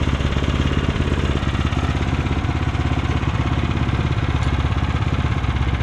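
Portable sawmill's engine running steadily at idle, with no change in speed.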